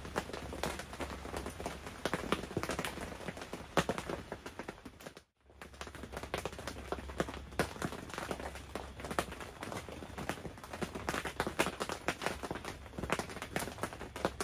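Rain pattering on a tent: a dense, irregular patter of drops. It breaks off for a moment about five seconds in, then resumes the same.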